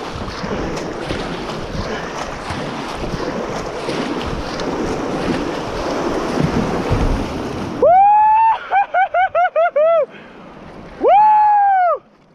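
Rushing river water and wind buffeting the microphone, a steady noise. About eight seconds in, this cuts off abruptly and a series of clear pitched tones follows, each rising and falling: one long tone, a quick run of about six short ones, then another long one.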